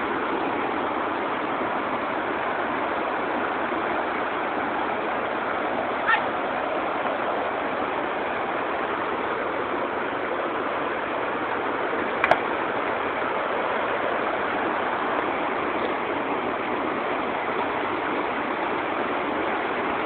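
Waterfall water rushing steadily over rocks, an even hiss with no break, and a single short knock about twelve seconds in.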